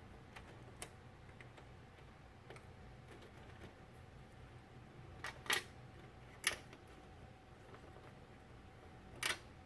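A few short, light clicks and taps, spaced seconds apart, from cables and plastic parts being handled inside a PC case, over a faint low hum.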